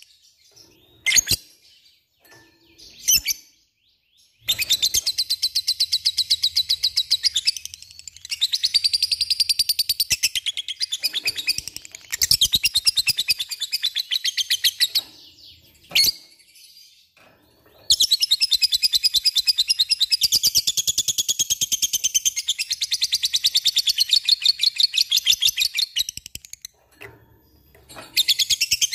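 Lovebird chattering in long runs of rapid, evenly repeated high notes, the fast chatter bird keepers call ngekek. The runs are broken by short pauses, with a few single sharp chips in the first seconds and once mid-way.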